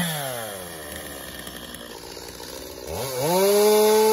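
Stihl MS 250 two-stroke chainsaw cutting brush. At first its engine note wavers under load, then falls back toward idle. About three seconds in it revs up sharply to a loud, steady full throttle.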